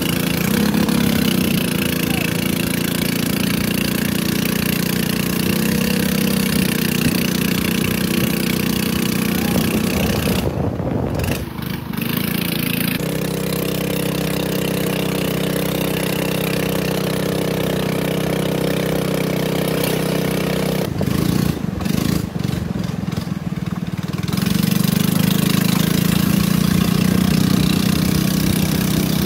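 Stock 13 hp four-stroke engine of a longtail boat running under way, a steady engine note. The note changes twice, around eleven seconds in and again around twenty-four seconds in.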